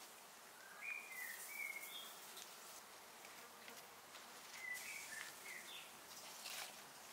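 Faint outdoor ambience with two short clusters of high chirps, about a second in and again near five seconds, over light rustling.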